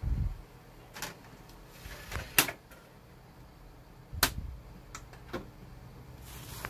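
Clicks and knocks at a Sony VAIO desktop's disc drive as a CD is loaded: a low thump at the start, then four sharp clicks a second or so apart, the loudest about two and a half seconds in. A low steady hum comes up near the end.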